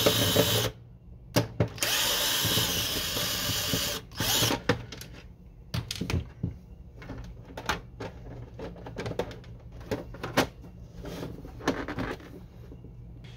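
Cordless drill-driver with a T10 Torx bit running in short spurts as it backs screws out of the printer's plastic top cover: a brief run at the start, then a longer run of about two seconds. After that come scattered clicks and knocks of plastic parts and the drill being handled.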